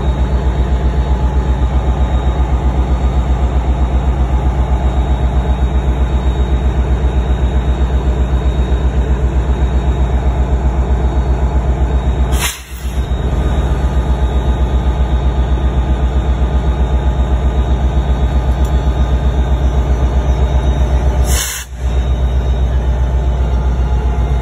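NJ Transit Multilevel commuter train moving past close by: a loud, steady low rumble with a fast regular throb. The sound cuts out briefly twice, about halfway through and near the end.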